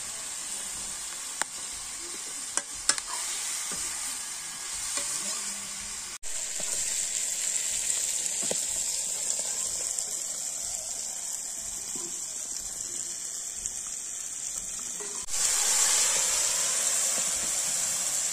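Chicken pieces sizzling steadily as they fry in hot oil in a steel wok over a wood fire. A few sharp metal clicks from the ladle against the pan come in the first three seconds, and the sizzle grows louder about fifteen seconds in.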